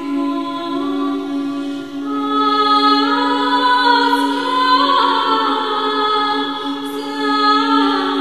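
Choir singing an unaccompanied chant over a steady held low drone note, the upper voices moving in slow melodic lines and swelling louder about two seconds in.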